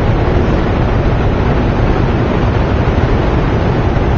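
Steady, loud machinery noise with a deep, even hum: hydroelectric generators running in the Hoover Dam power plant.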